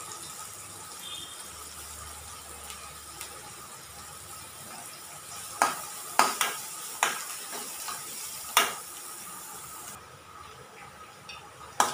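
Chopped onions sizzling in hot oil in a kadai as they are sautéed towards light brown. A metal spoon stirs them, clicking and scraping against the pan five or six times in the second half. The high hiss drops away about ten seconds in.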